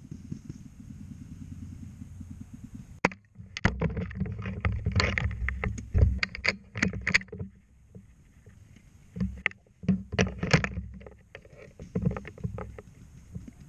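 Paintball markers firing: sharp pops, a couple alone about three seconds in, then several rapid bursts, over low rumbling handling and movement noise on a helmet-mounted camera.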